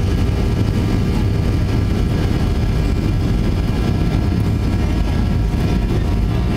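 Cabin noise of a Boeing 737-800 rolling down the runway for take-off: a loud, steady low rumble from the CFM56 engines and the wheels on the runway, with a faint steady whine above it.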